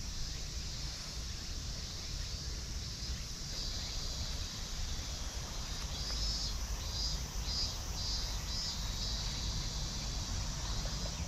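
Insects calling in a steady high-pitched band, with a run of about six pulses, roughly two a second, a little past the middle. A low rumble runs underneath.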